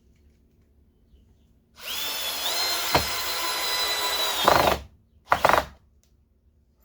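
Power drill running for about three seconds with a steady high whine that rises slightly just after it starts and drops as it stops, then a second short burst about half a second later.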